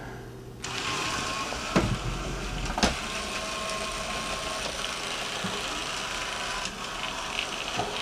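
The two drive-wheel motors of a Roomba rewired to an Arduino and a homemade motor controller start about half a second in and keep whirring steadily with a faint whine as the robot drives. There are two sharp knocks about a second apart near the start.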